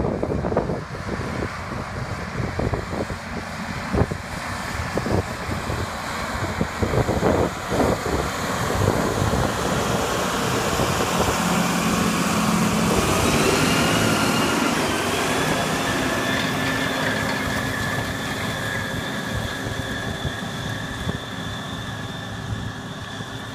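John Deere tractor's diesel engine running under load as it pulls an AerWay aerator and rolling-basket harrow across pasture. It grows louder as it passes close by about halfway through, then fades as it pulls away.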